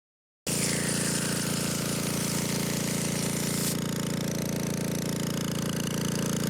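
An engine running steadily at a constant speed, cutting in suddenly from silence. A hiss in the high range drops away about three and a half seconds in while the engine runs on.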